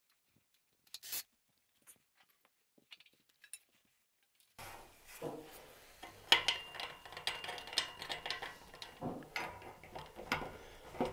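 Hands starting a bolt by hand into a metal bed-frame joint: small metallic clicks and rubbing. It is almost silent at first with an odd click, then from about four and a half seconds in the handling turns busier, with frequent sharp clicks.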